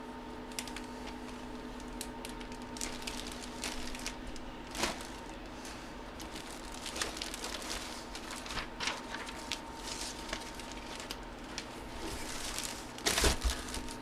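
Trading cards and their plastic packaging being handled: scattered light clicks and crinkling, with a louder rustle about thirteen seconds in, over a steady electrical hum.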